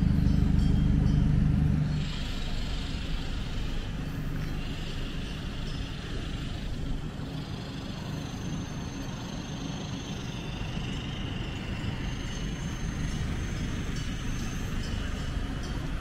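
Road traffic noise. A loud, low engine rumble runs for about the first two seconds and cuts off abruptly, then steady traffic noise continues with faint thin high tones over it.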